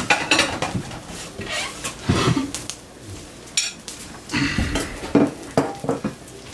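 Dishes and cutlery clattering as plates and forks are handled and set down, in scattered clinks and a few heavier knocks.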